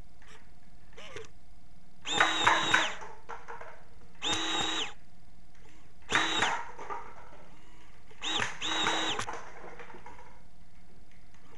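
Small electric motors of a homemade robot whirring in four short bursts, each well under a second to about a second long, as the robot is driven in short spurts.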